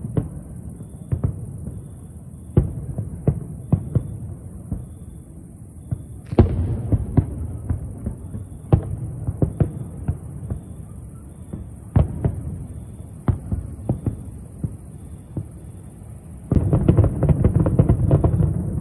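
Distant aerial fireworks going off, single bangs at irregular intervals, each followed by a low rumble. The bangs come thicker about six seconds in, and near the end a rapid barrage of many bursts at once runs together into a continuous rumble.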